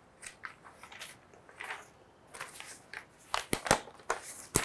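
Sheets of paper rustling and crinkling as they are shuffled and lifted, in irregular short bursts with a few sharp crackles in the second half.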